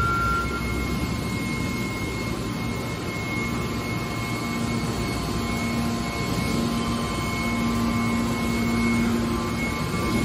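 Hydraulic scrap metal baler's power unit running: a steady mechanical hum with a thin high whine, the low hum growing louder about halfway through.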